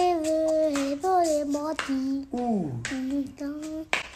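A child's voice singing a short tune in held notes, with one note sliding down partway through and brief breaths between phrases.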